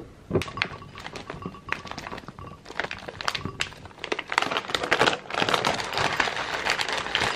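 Plastic food packaging crinkling as a bag of blueberries is handled and tipped into a glass mug, with clicks and taps of a wooden spoon and berries against the glass. A knock opens it, and the crinkling grows louder and denser in the second half.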